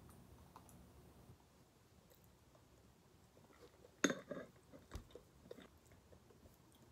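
Faint chewing of banana and yogurt. About four seconds in, a metal spoon knocks sharply against a ceramic bowl, and it knocks once more about a second later as it is set down in the bowl.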